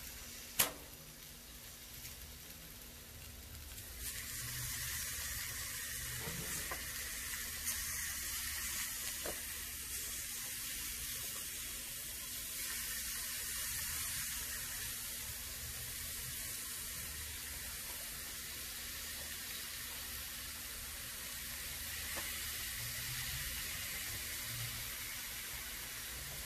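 Chicken drumsticks sizzling on a barbecue grill as barbecue sauce is brushed onto them. The steady hiss gets louder about four seconds in. There is one sharp click about half a second in.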